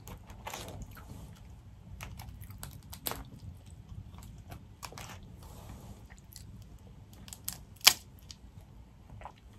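Chewing, with scattered small cracks and clicks as boiled crawfish shells are pulled apart by hand, and one sharper crack near the end.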